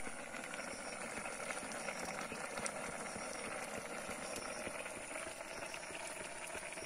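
Pot of Maggi instant noodles boiling on a portable gas stove: a steady bubbling hiss with tiny pops.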